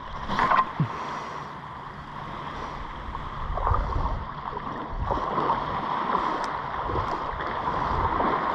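Small harbour waves lapping at the shoreline, with uneven low wind rumble on the microphone.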